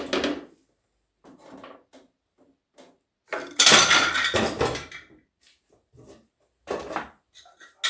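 Thin wooden panels knocking and clattering as a stack of them is handled and spread out on a bandsaw's metal table, with the loudest clatter lasting about a second and a half midway through and a shorter knock near the end.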